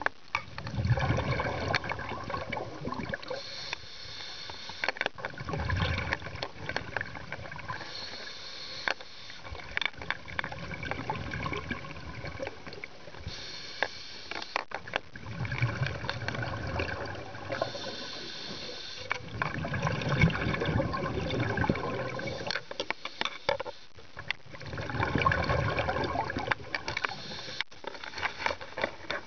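Scuba diver breathing underwater through a regulator: a hiss on each inhale, then a low rumble of exhaled bubbles, repeating about every four to five seconds.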